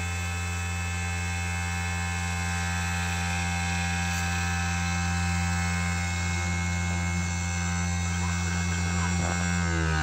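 Small converted CNC1610 lathe's spindle motor running at a steady speed with an even electric whine and hum; right at the end its pitch starts to fall as it begins to spin down.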